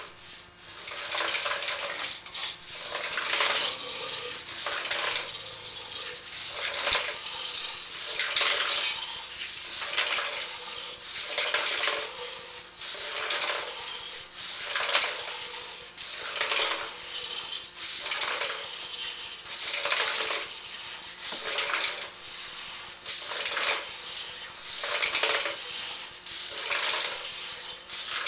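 Sewer inspection camera's push cable being fed by hand down a drain line in repeated strokes, about one every second and a half, each stroke a metallic scraping rattle, over a faint steady hum.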